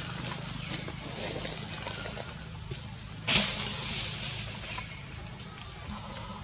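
A steady high-pitched whine over a low hum, with one sudden, short, loud noise about three seconds in.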